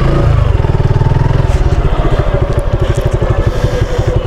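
Suzuki Gixxer's single-cylinder engine running at low revs as the motorcycle rolls slowly. The revs ease off about a second in, settling into a steady, even exhaust beat.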